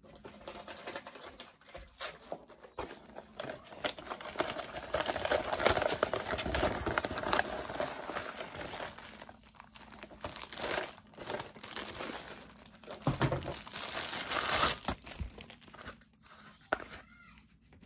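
Tissue paper in a shoe box rustling and crumpling as it is pushed aside and a slide sandal is lifted out. The rustling comes in uneven bursts, loudest around the middle and again near the end.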